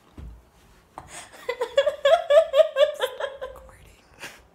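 A woman laughing hard in a rapid run of high-pitched ha-ha pulses for about two seconds, starting about a second and a half in, with a short breathy sound near the end.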